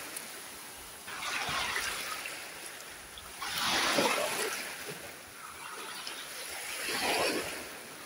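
Small sea waves breaking and washing up a sandy shore among rocks: three washes of surf, the loudest about four seconds in.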